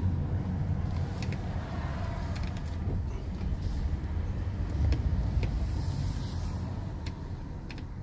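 Car driving along a road, heard from inside the cabin: a steady low rumble of engine and tyres, with a few light clicks.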